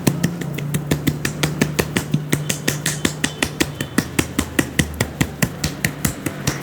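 Rapid percussive tapping of a barber's hands on the head during an Indian head massage, an even rhythm of about six strokes a second, over a steady low hum.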